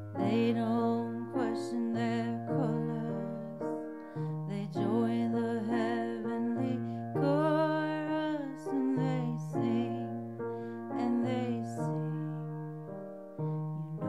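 A woman singing a slow, gentle song with vibrato on held notes, over a piano accompaniment.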